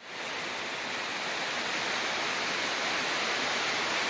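Steady rush of falling water from the Dzykhra waterfall, a seasonal fall that runs only while snow lies on Mount Dzykhra. It fades in over the first half-second after a brief silence, then holds even.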